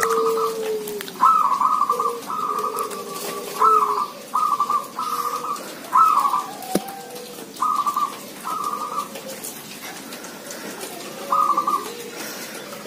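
Caged zebra doves cooing, several birds calling back and forth. Each call is a quick run of staccato coo notes, repeated every second or so, over a lower drawn-out coo in the first few seconds.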